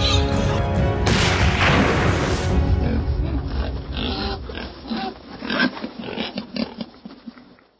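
Background music gives way to wild boars grunting and squealing in irregular short calls, which fade out near the end.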